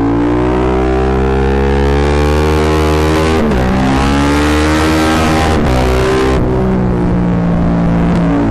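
Yamaha MT-07's parallel-twin engine running through a full Akrapovic exhaust under acceleration. The revs climb, drop sharply twice as it shifts up, about three and a half and five and a half seconds in, then hold fairly steady. The sound is distorted, the microphone overloaded by the exhaust's loudness.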